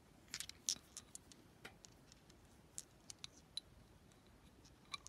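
Faint, scattered light clicks of a reloaded cartridge's brass case and fingers against the steel of a Glock factory barrel as the round is handled and slipped into its oversized chamber, where it goes in readily.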